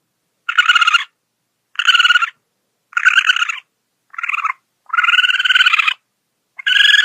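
A possum calling, six buzzy, rapidly pulsed calls of about half a second to a second each, separated by short silences.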